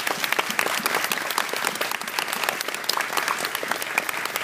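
Spectators clapping steadily, applause for a point scored in a kendo bout.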